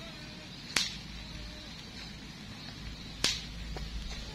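Two short sharp snaps about two and a half seconds apart, over a low steady background hum.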